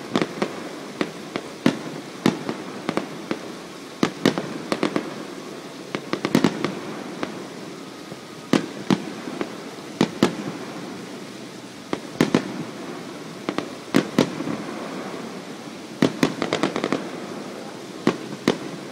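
Aerial fireworks shells bursting in an irregular series of sharp bangs, often several in quick succession. Each bang echoes back off the surrounding valley.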